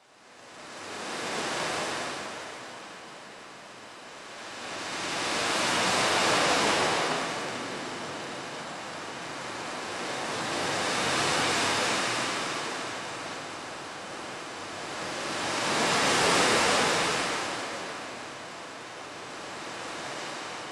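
Ocean surf: waves washing in and drawing back, swelling and fading about every five seconds. It fades in from silence at the start.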